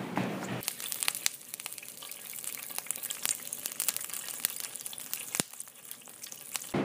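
A steady rumbling noise breaks off abruptly under a second in. A crackling hiss with many scattered sharp clicks replaces it, then cuts off near the end as the rumbling returns.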